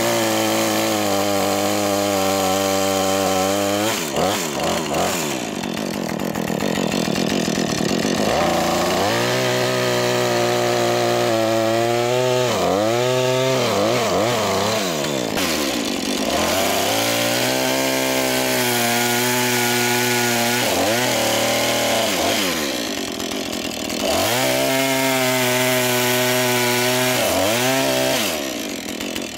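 Husqvarna chainsaw running at full throttle, cutting through a birch log. The engine tone drops and climbs again several times as the throttle is eased between cuts.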